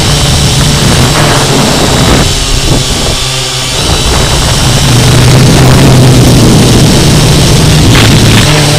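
Syma X8C quadcopter's four brushed motors and propellers whirring close to the camera, the pitch shifting up and down with the throttle. It dips briefly about three seconds in, then rises again.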